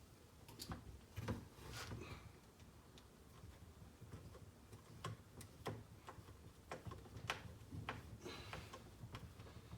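Faint, irregular clicks and light scrapes of a hex driver, small screws and plastic parts being handled as screws are taken out to free the engine's fan shroud.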